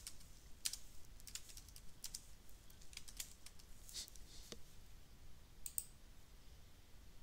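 Faint typing on a computer keyboard: irregular single key clicks, with a click or two of the mouse as an entry is picked.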